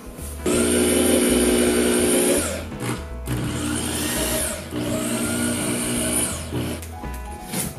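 Corded Craftsman power drill running in three bursts of about two seconds each as it works into the wall through the pegboard; the motor's pitch rises and falls within each burst, and the first burst is the loudest.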